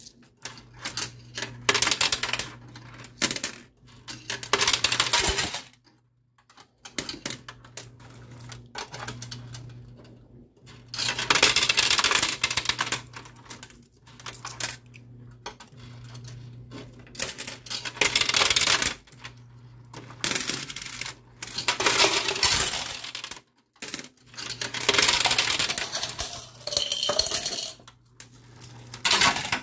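Quarters clinking and clattering in a coin pusher arcade machine, coming in repeated bursts with short pauses, over a low steady machine hum.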